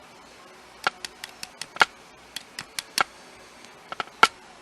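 About a dozen sharp little metal clicks and taps at irregular spacing, from the pins and parts of a disassembled pin-tumbler lock being handled.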